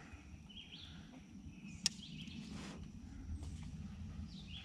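Faint outdoor ambience with a few short bird chirps over a low rumble, and one sharp click about two seconds in.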